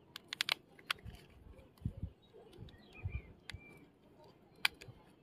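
Sharp plastic clicks from handling a pen-style electric screwdriver: a quick run of clicks in the first second and a single click near the end, with dull handling bumps in between.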